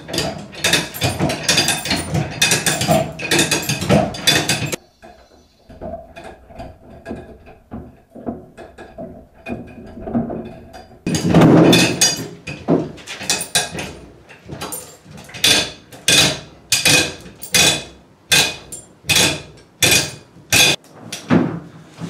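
A hoist lowering a cut-off car roof on its chain, with rapid metallic ratchet clicking and chain rattle. There is a louder clatter about halfway through as the roof comes down onto the floor, then the clicking comes in regular bursts, roughly one and a half a second.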